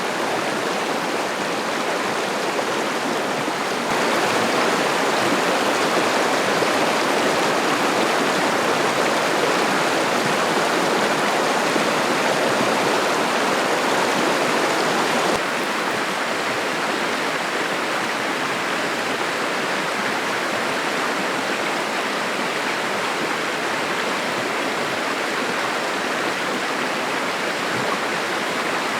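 Clear mountain river flowing steadily, a continuous rush of water. It grows louder about 4 seconds in and drops back about 15 seconds in.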